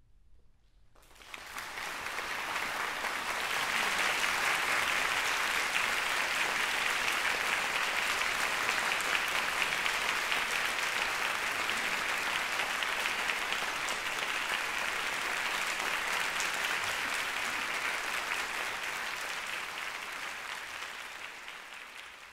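Concert audience applauding. It begins about a second in, builds quickly to a steady level, then tapers and cuts off at the end.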